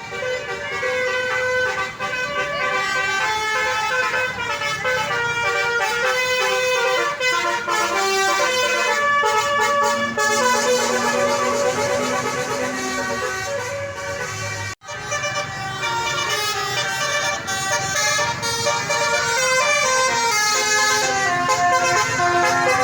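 A bus's multi-tone 'basuri' telolet horn playing a fast melody of changing notes, broken off by a brief gap about fifteen seconds in before the tune starts again.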